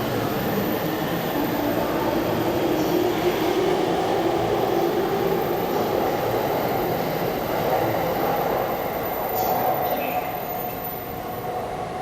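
An E233 series electric commuter train running along the platform as it pulls out, with a steady rumble of wheels and a faint whine in it.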